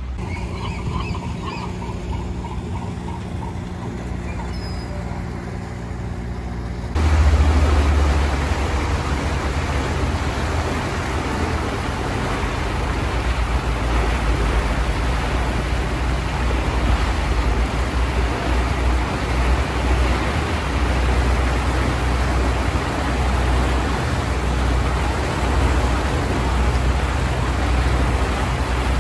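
A water bus's motor hums steadily while under way. About seven seconds in the sound jumps to a louder, steady rush of churning wake, wind and low engine rumble over the stern.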